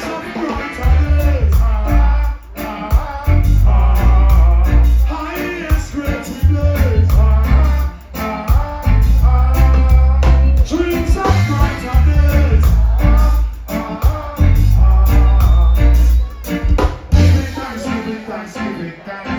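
Live reggae band playing, a deep, heavy bass line under a wavering melody line.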